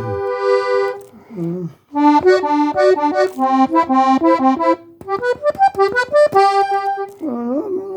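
Diatonic button accordion tuned in G playing a held chord that stops about a second in, then, after a short pause, a quick run of melody notes with small button clicks between them.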